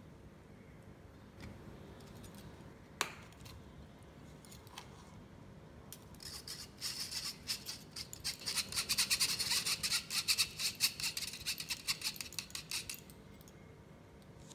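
A metal spoon scraping matcha powder through a fine wire-mesh sieve: a rapid run of scratchy strokes that starts a little before halfway and stops shortly before the end. A single sharp click comes earlier, about three seconds in.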